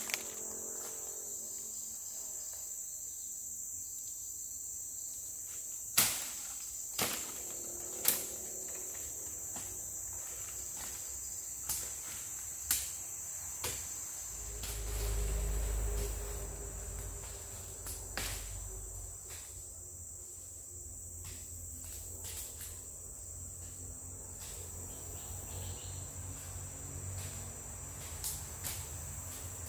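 Steady high-pitched drone of a tropical rainforest insect chorus, broken by a handful of sharp cracks, three close together around six to eight seconds in, and a brief low rumble about halfway through.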